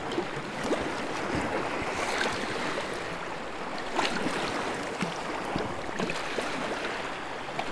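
Kayak paddle strokes splashing in the water, roughly one a second, over a steady wash of water.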